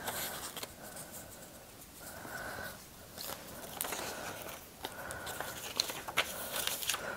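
Rummaging through a fabric project bag: rustling with scattered small clicks and knocks as knitting projects are handled and pulled out.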